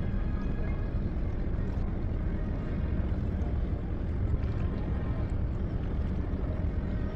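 Steady low rumble of outdoor ambience on the water, the kind heard from a small boat under way with wind on the microphone.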